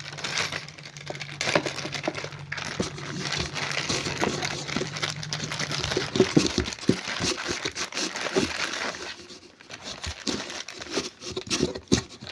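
Plastic packaging crinkling and rustling as small pressure-washer accessories are unwrapped and handled, with irregular crackles and clicks. A low steady hum runs underneath and stops about six seconds in.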